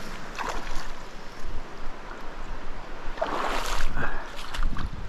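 Rushing water of a shallow river rapid, with splashes. The loudest is a burst of splashing about three and a half seconds in.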